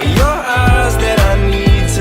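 Background pop music with a steady beat of about two strokes a second, deep bass and a melody line that slides in pitch.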